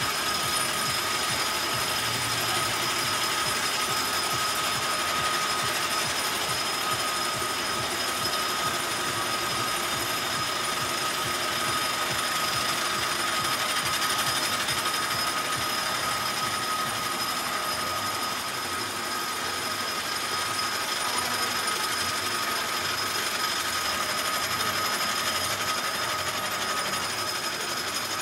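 Lift hill of a Vekoma Flying Dutchman roller coaster hauling a train up, its chain and anti-rollback ratchet making a rapid, steady clatter over a constant high whine.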